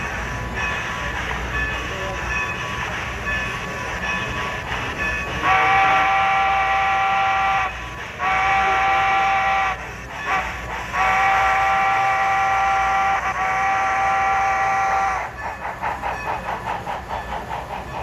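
Steam whistle from the sound system of an HO-scale model of Strasburg Rail Road steam locomotive No. 90, blowing two long blasts, a short one and a long one: the grade-crossing signal. Before the whistle the model train runs with a steady rumble, and after it comes a fast rhythmic pulsing of about five beats a second.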